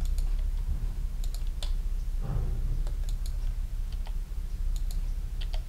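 Scattered clicks of a computer keyboard and mouse as keys are pressed and the camera is moved in the program, over a steady low hum.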